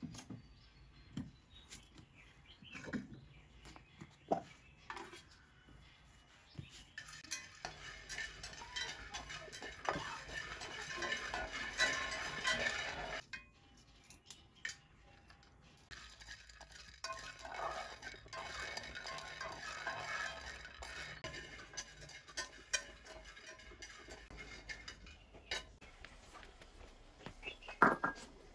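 Kitchen utensils clinking against bowls and pans, with two longer stretches of scraping and stirring during food preparation.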